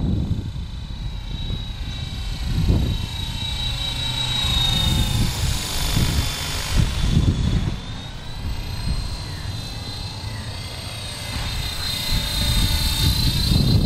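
Twister Storm RC helicopter in flight: the high whine of its motor and rotor, its pitch rising and falling as the helicopter swings past and away.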